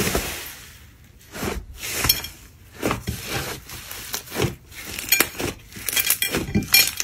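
Air-puffed slime being squeezed and kneaded by hand, giving irregular crackles and pops as the trapped air pockets burst and the slime deflates. There is a louder burst right at the start and a denser run of crackles near the end.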